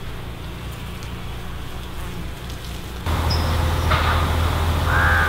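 Steady low hum of outdoor background noise, which steps up clearly louder about three seconds in.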